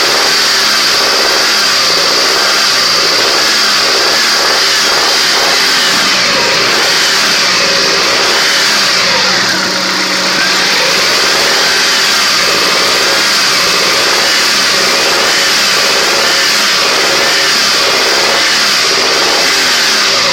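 Honda Accord's F22B 2.2-litre four-cylinder engine running, its revs rising and falling, recorded for an engine knock.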